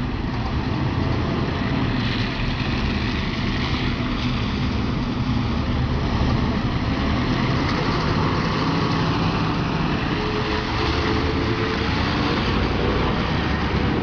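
LiAZ-677M city bus with its V8 petrol engine running steadily as the bus drives up and passes close by.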